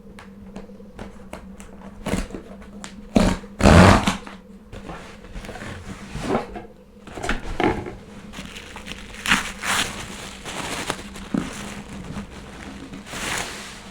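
Packaging being unwrapped: paper or plastic crinkling and rustling in irregular handling bursts, loudest about three to four seconds in.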